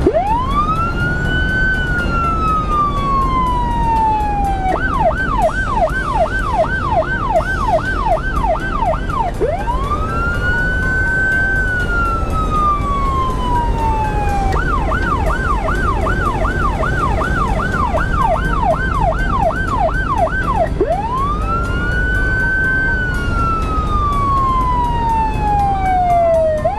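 Federal Signal electronic police siren run from inside the car, switching between wail and yelp: each wail rises fast and sinks slowly over about three seconds, each yelp stretch is rapid sweeps about two a second, three wails and two yelps in turn. Steady engine and road noise of the moving Ford Mustang 5.0 police car sits underneath.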